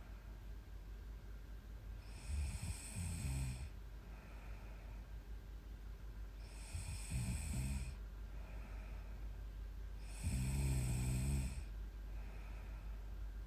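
A young woman snoring in her sleep: three rough snores about four seconds apart, each lasting about a second, the third the loudest, with quieter breaths between them.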